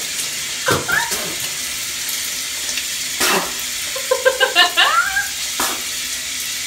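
Shower spray hissing steadily, with high-pitched wordless vocal cries: a short falling wail about a second in and a run of quick, rising and falling cries around four to five seconds in.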